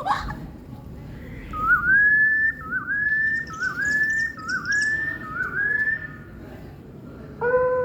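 A bird's whistled call repeated about five times in a steady rhythm, each phrase a quick dip followed by a rising slide into a held note. Near the end a steady, level, howl-like tone begins.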